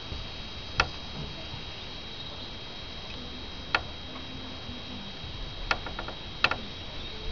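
Four sharp, separate clicks or knocks a second or more apart, over a steady faint hiss.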